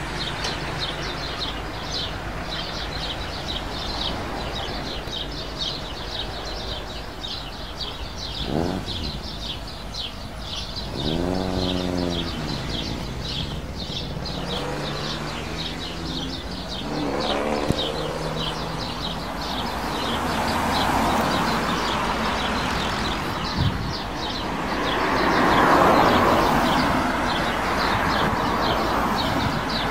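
Road vehicles, cars and a motorcycle, passing one after another, their engine pitch rising and falling as they go by, with the loudest pass about two-thirds of the way through. A high rhythmic chirping, several pulses a second, runs under it throughout.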